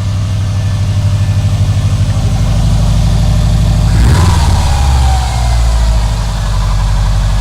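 Subaru STI's turbocharged boxer four-cylinder idling with a steady pulsing note on its first run after a crankshaft sprocket with broken teeth was replaced, which had cost it its spark. It is revved once about four seconds in, and the revs fall back to idle. It sounds healthy, a happy sounding engine.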